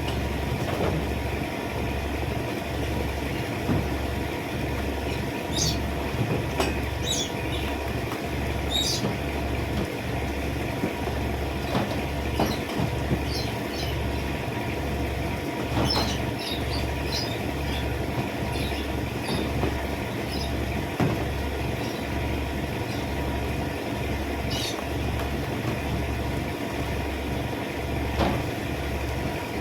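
A machine running steadily with an even low throb of about one pulse a second, and short high chirps now and then over it.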